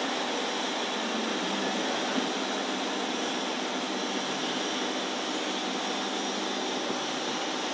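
Steady rushing air noise with a faint hum from the vacuum suction blower of a CNC fabric-cutting table, which holds the cloth down on the felt bed. One small tick sounds about two seconds in.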